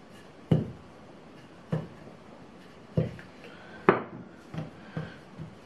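Wooden rolling pin working strudel dough on a floured table: four sharp wooden knocks about a second apart as the pin bumps the tabletop, the loudest near four seconds in, then a few fainter taps.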